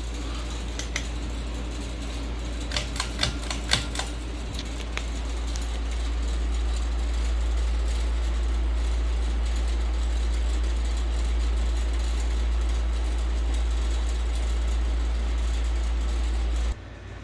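Ceiling fan running with a steady low rumble, with a quick run of sharp clicks about three seconds in; it cuts off suddenly near the end.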